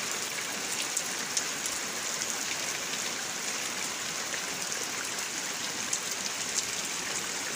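Steady rain falling, with scattered sharper drop taps.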